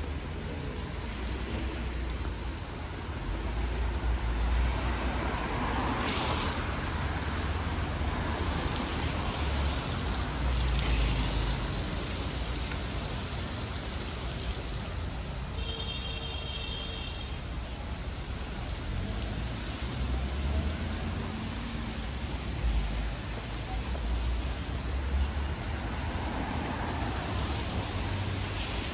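City street traffic: vehicles passing over a steady hiss of road noise, with a low rumble that swells and fades. A brief high-pitched tone sounds about halfway through.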